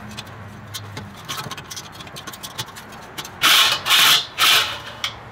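Light metal clicks and taps, then three short, loud scrapes of the metal ash-catcher base ring being forced and twisted into place against the Weber kettle's leg sockets.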